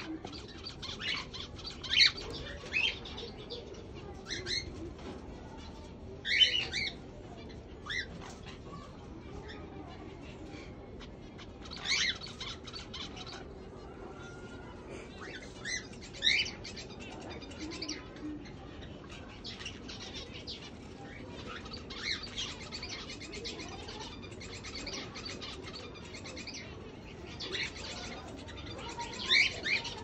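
Small caged parrots chirping, with short, sharp, high calls every few seconds; some calls are much louder than others, and a few slide up or down in pitch.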